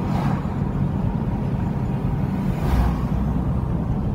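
Car being driven, heard from inside the cabin: a steady low rumble of engine and tyres, with two brief swells of rushing noise, just after the start and a little under three seconds in.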